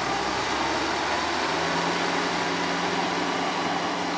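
Kubota M6040SU tractor's diesel engine running steadily under load while it drives a rotary tiller through wet paddy mud. A steady low hum comes through more clearly about a second and a half in.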